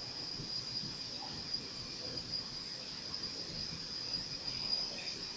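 Quiet ambience of an indoor pool hall under a steady high-pitched whine.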